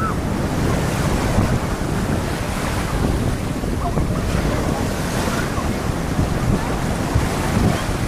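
Waves breaking on the shore under strong wind, with wind buffeting the microphone: a steady, dense rush of noise with a heavy low rumble.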